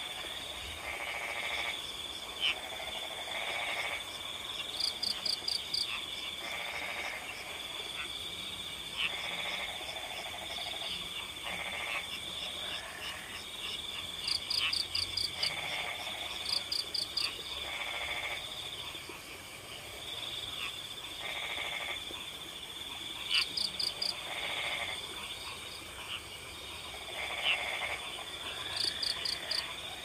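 A chorus of frogs croaking in pulsed calls that come again every second or two, over a continuous high trill of crickets. Now and then a quick run of four or five sharp, high ticks stands out above them.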